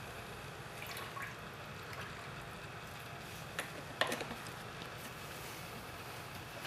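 Faint dripping of oil into a plastic tub of water, a few soft ticks over a steady low hiss, the clearest drip about four seconds in.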